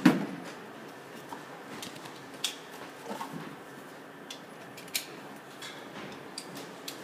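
Pistol shots at an indoor range: one loud bang right at the start, then fainter sharp cracks about two and a half and five seconds in, with a few small clicks, over a steady hiss.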